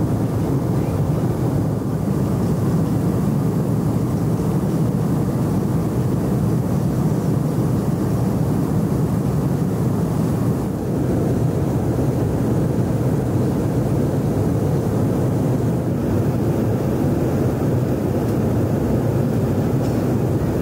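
Steady, low rush of cabin noise in an Embraer E190 twin-jet airliner in flight: engine and airflow noise heard from a seat inside the cabin, even and unbroken.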